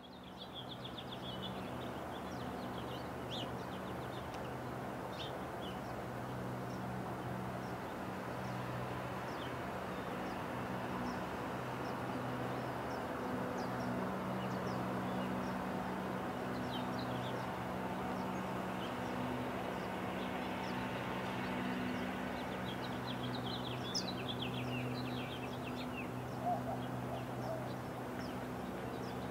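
Small birds chirping and trilling outdoors, short high calls scattered throughout, over a steady low hum.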